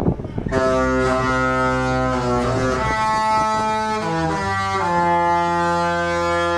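The Disney Fantasy cruise ship's horns play a Disney tune as a series of deep chords, with several horns sounding together. The chords start about half a second in and change pitch every second or so. The last chord begins about five seconds in and is held long.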